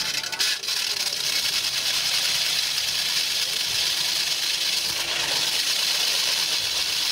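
Hand-held hydraulic core drill turning a very large water-fed diamond core bit into concrete: a steady grinding hiss of the bit cutting, over the steady running of the hydraulic power pack's engine. A few brief clicks about half a second in.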